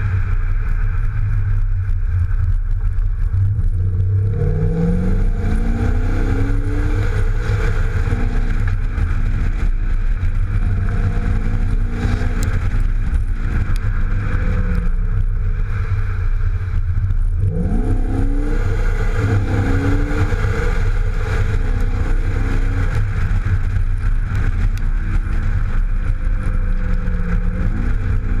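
Exhaust of a 2015 Audi A7 3.0 BiTDI with a twin-turbo V6 diesel and sport exhaust, on the move. The engine note climbs in pitch and drops back several times as the car accelerates and eases off, over a steady low road rumble.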